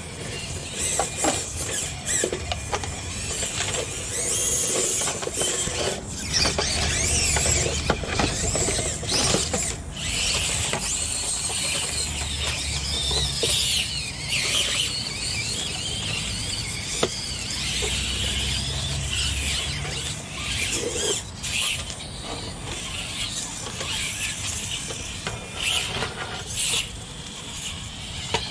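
High whine of 1/24-scale RC rock crawlers' small electric motors and geared transmissions, wavering up and down in pitch with the throttle. Frequent clicks and knocks from the tyres and chassis against the rocks.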